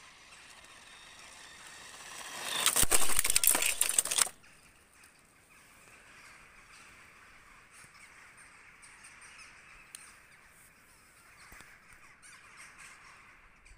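Small RC toy car, its 6 V motor run on a 7.6 V battery, driving over paving stones. Its motor whine and the rattle of the wheels build up and are loudest for about two seconds as it comes close, then drop off sharply. A fainter steady whine carries on after that.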